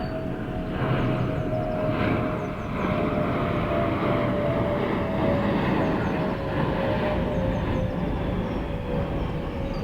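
Airliner on landing approach passing low overhead: a steady jet roar with a whine that slowly falls in pitch. Birds chirp faintly.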